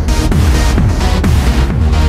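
Electronic music: a steady kick-drum beat, a little over two beats a second, under layered synthesizer tones.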